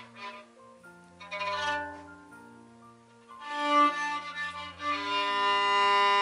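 Violin played with the bow: a slow phrase of held notes, ending on a long, loud held note, with low sustained notes beneath.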